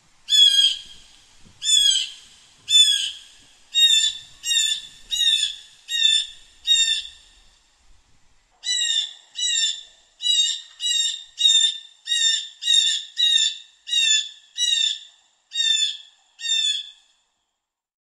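Blue jay calling: a string of about twenty short, repeated jay calls, each under half a second, in two runs split by a pause of about a second partway through.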